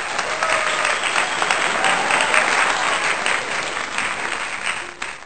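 Crowd applause, a dense steady clapping that cuts off suddenly near the end.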